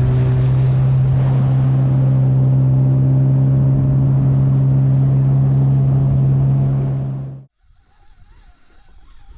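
Boat motor running steadily at constant speed, with wind and water noise over it; it cuts off abruptly about seven and a half seconds in.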